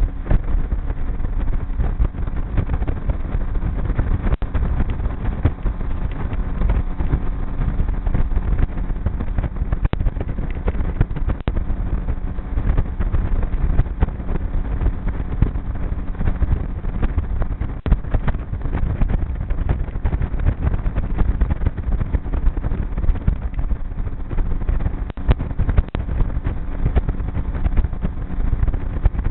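Outboard motor running at a steady pace on a G3 V167 aluminium boat under way, with a constant rush of wind and water.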